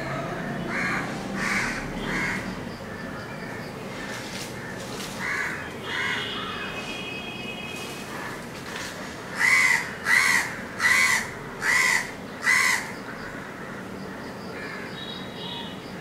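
A crow cawing: three caws in the first two seconds, two more about five seconds in, then a run of five louder caws in quick succession. Another bird gives a brief high whistling call twice, over a steady background hiss of the surroundings.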